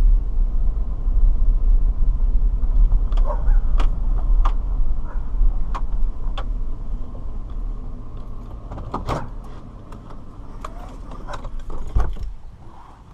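Car's low engine rumble from inside the vehicle, with a series of sharp clicks and knocks. Near the end comes a louder thump, after which the rumble falls away.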